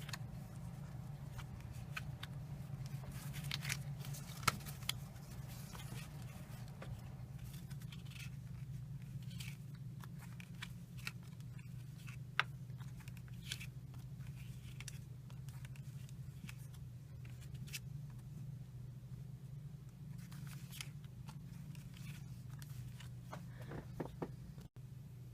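Pokémon trading cards being handled: scattered soft scrapes, rustles and clicks of cards sliding against each other and being flipped, over a steady low hum.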